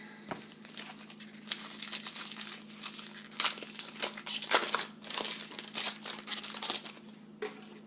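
Plastic-foil trading card pack wrapper crinkling in the hands and being torn open, an irregular run of crackles that goes on for about seven seconds.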